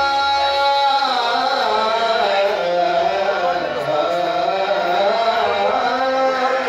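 Bhajan singing with music: a voice holds one long steady note, then about a second in moves into a wavering, ornamented melody.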